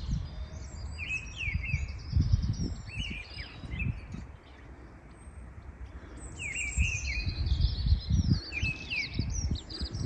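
Song thrush singing short, clear phrases in two spells, one starting about a second in and another from about six and a half seconds, over a gusty low rumble of wind on the microphone.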